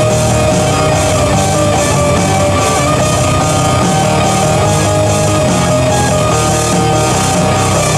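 Instrumental break of a rock song: a band playing with guitar at a steady beat.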